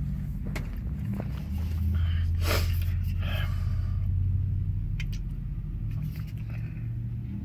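Steady low rumble of a vehicle engine heard from inside a car cabin, swelling for a few seconds in the middle. A few soft rustles and light clicks as a drink can is handled.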